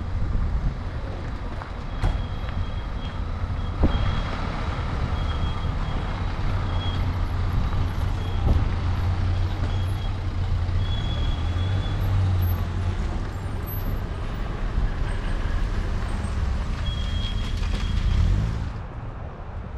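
Steady low rumble of a motor vehicle, with short high-pitched tones coming and going; the rumble falls away sharply near the end.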